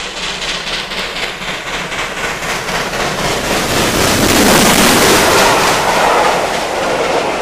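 A train passing close by, the rumble and rush swelling to its loudest about four to six seconds in, then easing slightly.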